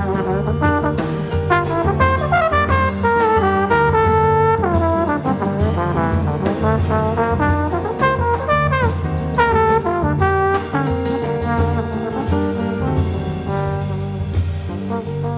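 Jazz trombone solo, a melodic line with sliding, bending notes, backed by piano, electric bass guitar and drum kit.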